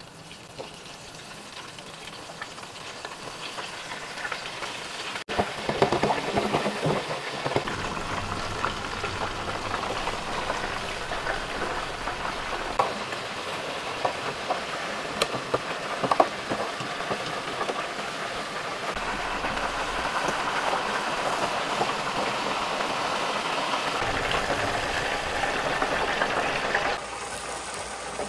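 Battered chicken deep-frying in hot oil in an electric deep fryer: a steady sizzle with sharp crackles. It grows louder over the first several seconds and crackles hardest about six seconds in.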